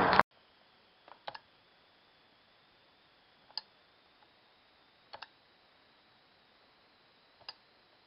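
Outdoor background noise cuts off abruptly just after the start. What is left is a faint steady hiss with about five short, sharp clicks spread through the rest, two of them doubled.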